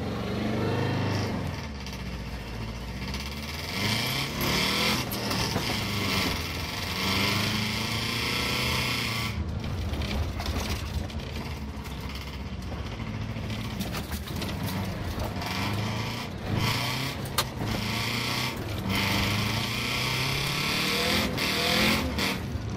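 Car engine being driven hard on a dirt track, revving up and dropping back again and again as it accelerates and lifts through the corners, over steady road and wind noise.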